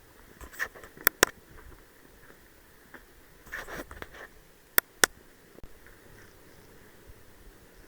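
Airsoft gun firing two quick pairs of sharp cracks, about a second in and again about five seconds in, with a brief patch of shuffling noise between them.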